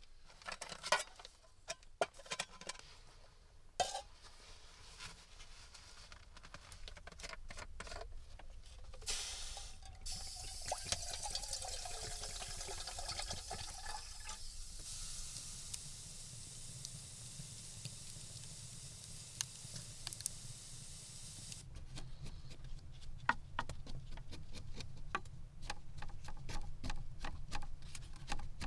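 Small clicks and taps of handling, then liquid being poured for about five seconds with a falling tone, followed by a steady hiss; more light clicks and taps near the end.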